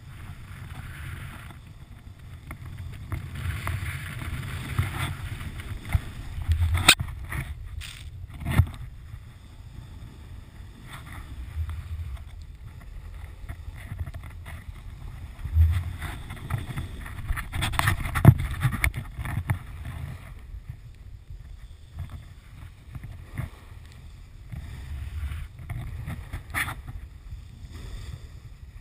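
Snowboard sliding and turning through deep fresh powder, a rushing swish that swells and fades with the turns, with wind on the microphone and a few sharp knocks.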